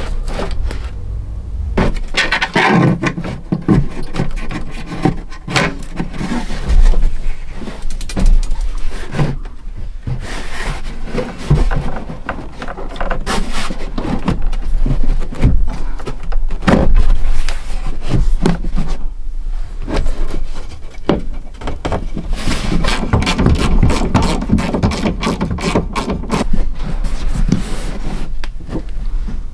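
Irregular scraping, knocking and clattering of parts being handled and fitted while an air cleaner box is put in place on a truck, over a steady low hum.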